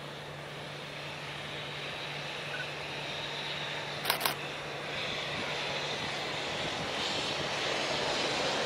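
Electric-hauled freight train of tank wagons rumbling across a steel girder bridge, the noise growing steadily louder as it approaches. A sharp double click, a fraction of a second apart, comes about four seconds in.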